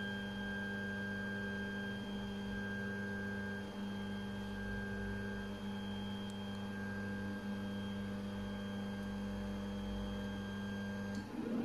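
Stepper motors of a 3D printer converted into a pick-and-place machine, driving its axes slowly while homing: a steady electric hum with a higher whine that cuts off shortly before the end as the motion stops.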